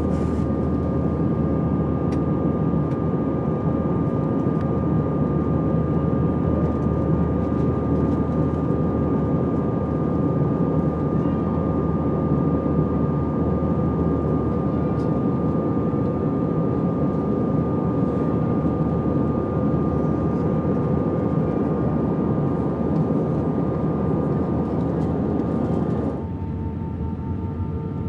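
Steady jet roar inside an Airbus A320 passenger cabin in flight, engine and airflow noise with a constant whine on top. Near the end the roar drops in level and the whine steps down to a lower pitch.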